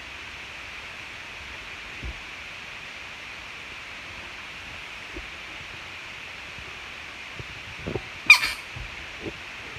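Steady faint hiss with a soft thump about two seconds in, then one short, sharp animal call near the end.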